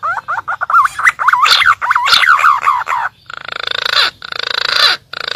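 Green pigeon (punai) calling: a fast run of wavering whistles, then, from about three seconds in, three harsh, rasping notes.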